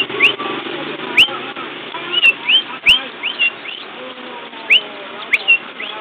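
Nineteen-day-old canary chicks begging, giving short, sharp, rising cheeps, about a dozen at uneven intervals, over a steady low background murmur.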